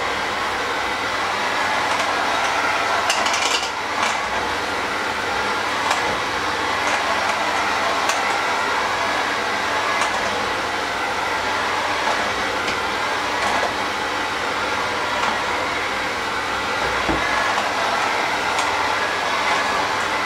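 Electric hand mixer running steadily with its beaters in a stainless steel bowl of mashed food. The beaters give occasional sharp clicks as they knock against the bowl.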